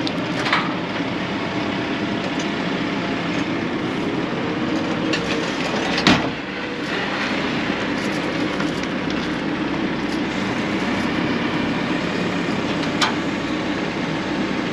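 The diesel engine of a digger-type lifting machine runs steadily while it lowers a Massey Ferguson 165 tractor on a chain. About six seconds in there is one loud thump as the tractor is set down on the steel trailer deck, with lighter knocks near the start and about thirteen seconds in.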